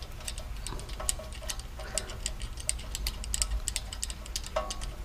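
Ratchet wrench clicking in quick, uneven runs of light clicks, several a second, as the 10 mm bolt holding the ABS wheel-speed sensor to the steering knuckle is turned.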